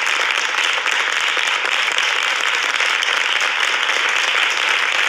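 Studio audience applauding, a steady dense clapping throughout.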